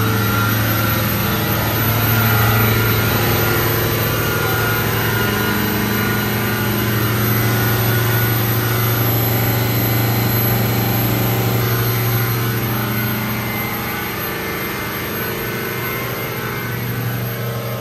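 A motor yacht's engines running underway at speed: a steady low drone, mixed with wind and rushing water from the wake.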